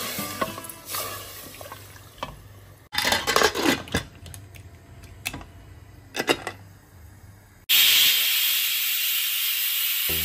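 Metal clinks and knocks as the lid of a stainless steel pressure cooker is handled and closed, then about eight seconds in a loud steady hiss starts suddenly and keeps going.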